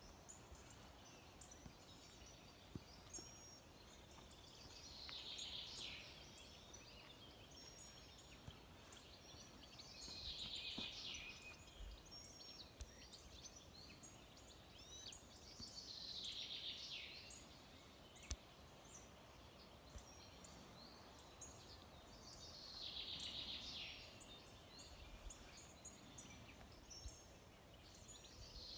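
A songbird repeating a short, falling song phrase about every six seconds, faint, with scattered chirps from other birds in between.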